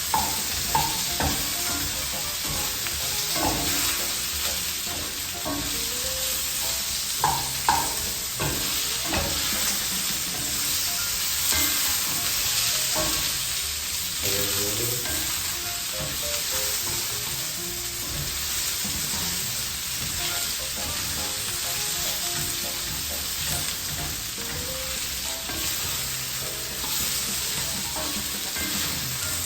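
Potatoes and onions sizzling as they fry in a pan, a steady hiss. A utensil knocks and scrapes against the pan as they are stirred, most often in the first several seconds.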